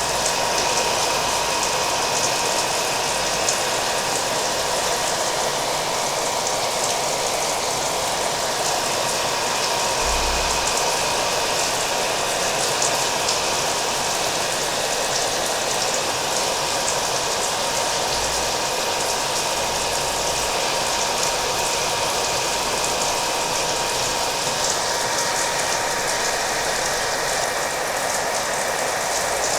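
Hair dryer blowing steadily with a constant motor whine, mixed with falling rain.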